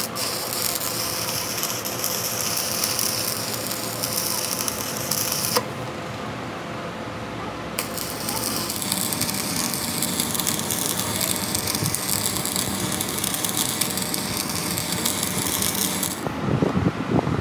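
Crackling, hissing metalwork on a truck axle, in two long runs separated by a pause of about two seconds.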